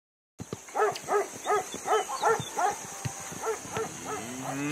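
A dog barking repeatedly, about three barks a second for some two seconds, then a few fainter barks. Near the end a cow starts to moo, its call rising in pitch.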